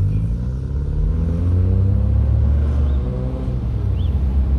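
Vehicle engine pulling away from a standstill and accelerating, its pitch rising steadily for about three seconds and then levelling off, over a strong low rumble heard from inside the cabin.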